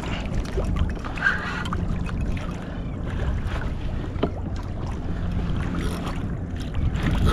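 Wind buffeting a kayak-mounted camera's microphone and water lapping against the kayak hull, a steady rushing with a few faint clicks and splashes.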